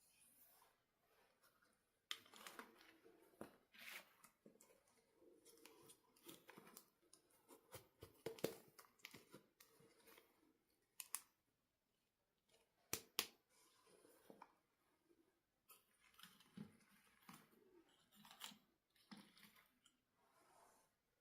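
Faint handling sounds of toys and their packaging: scattered clicks, snips and rustles, with a few sharper clicks about halfway through.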